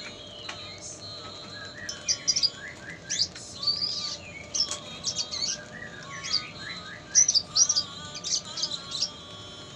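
Male red siskin singing: a lively run of quick chirps, twitters and short rising whistles, starting about two seconds in and carrying on almost to the end, loudest a little after the middle.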